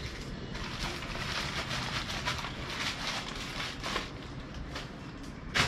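Plastic courier mailer bag rustling and crinkling as it is handled and opened, with a sharp click near the end.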